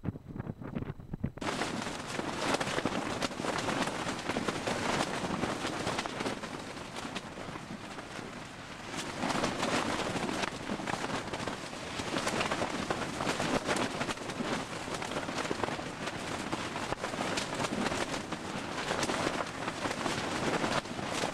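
Strong gusting wind buffeting a tent, the fabric rattling, heard from inside the tent; the noise starts abruptly about a second in and swells and eases every few seconds.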